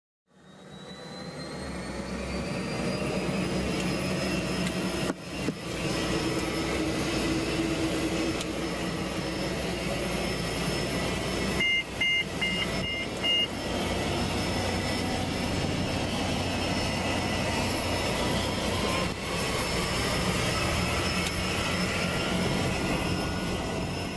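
Light aircraft's engine heard from inside the cabin, a steady drone with a high whine that rises over the first few seconds and climbs again near the end. About halfway through, four quick two-tone beeps sound.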